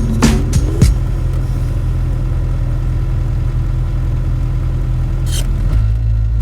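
Land Rover Defender's 300Tdi four-cylinder turbodiesel running steadily on the move, a low drone with a few sharp knocks in the first second. The engine note shifts near the end.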